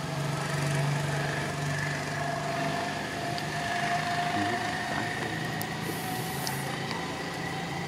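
Steady engine drone, as of a motor idling: a low hum with a fainter, higher whine held over it. A brief hiss about six seconds in.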